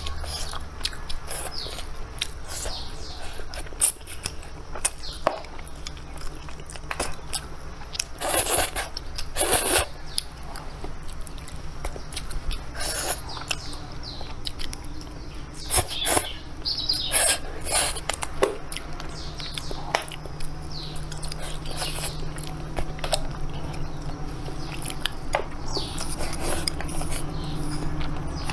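Eating sounds: chewing and crunching of food, with scattered sharp clicks of chopsticks and dishes, over a steady low hum. Birds chirp now and then in the background.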